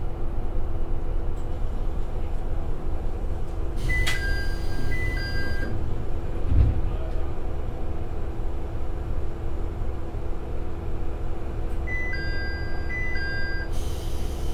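Tsugaru 21 diesel railcar's Niigata DMF13HZ engine idling steadily while the train stands at a station. About four seconds in and again about twelve seconds in, a two-note electronic beeping sounds with a hiss of air, typical of the passenger doors opening and closing. Between them there is a single low thump.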